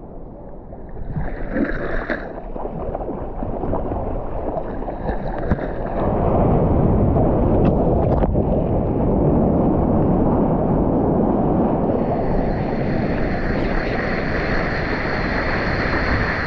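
Broken-wave whitewater rushing at and around a surfer in the water, a turbulent churning surge that builds and turns loud about six seconds in, then rushes on steadily.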